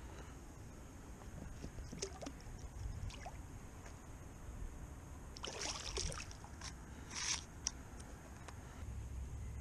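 Quiet rustling and handling noises from an angler moving about in a kayak, with scattered small clicks and two short noisy bursts a little past halfway.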